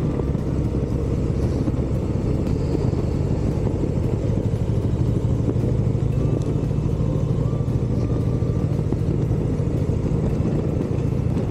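Harley-Davidson Dyna Super Glide Custom's V-twin engine running steadily as the motorcycle is ridden along a road.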